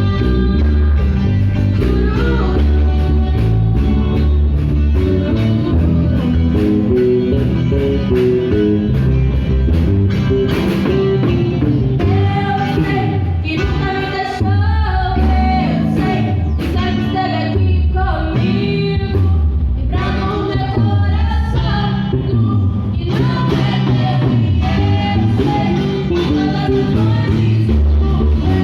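Worship band playing a gospel song with bass and drums, with voices singing over it, most strongly in the second half.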